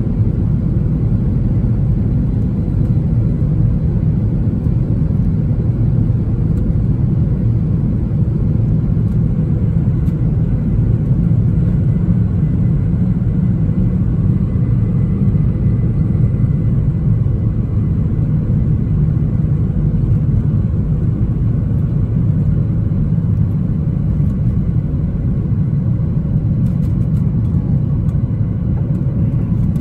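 Boeing 737-800's CFM56 jet engines at takeoff thrust with the runway rumble of the takeoff roll, heard inside the cabin: a loud, steady, deep rumble.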